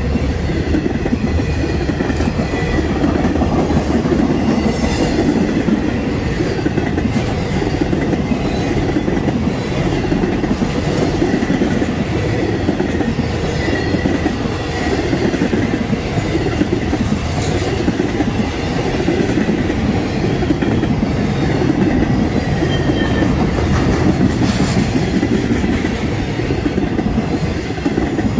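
Empty intermodal cars of a long freight train rolling past: a loud, steady wheel-on-rail rumble that pulses as each set of wheels goes by, with a clickety-clack over the rail joints.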